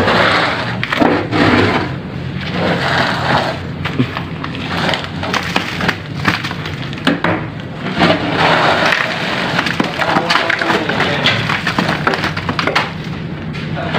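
A wooden plank scraping and knocking inside a concrete tomb niche, raking out crumbled debris, with repeated uneven scrapes and sharp cracks of wood and rubble.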